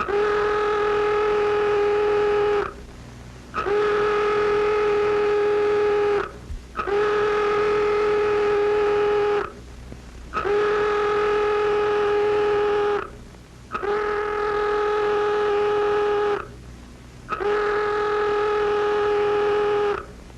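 Base alert klaxon sounding the scramble: one steady-pitched horn tone in six long blasts, each about two and a half seconds, with short gaps between them.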